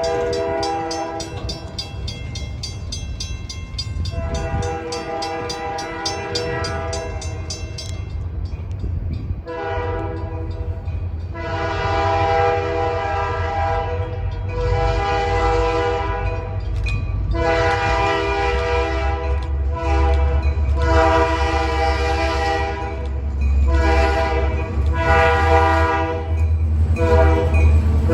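Locomotive air horn sounding a chord in a series of about ten blasts, the first two long and the rest shorter, over the low rumble of a passing train that grows louder toward the end.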